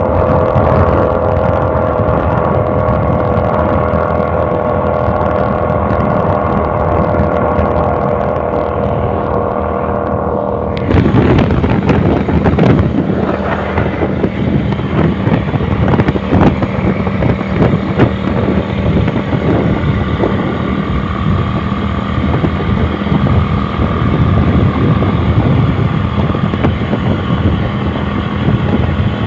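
Kasinski Mirage 250 motorcycle's V-twin engine running with a steady note. About eleven seconds in, this gives way suddenly to a rougher, noisier sound with wind on the microphone.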